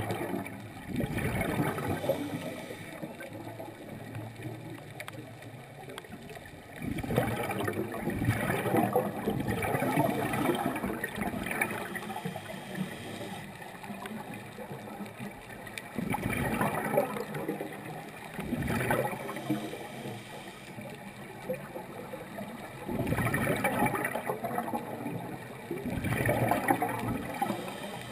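Water gurgling and bubbling in repeated surges of one to several seconds, with quieter stretches between.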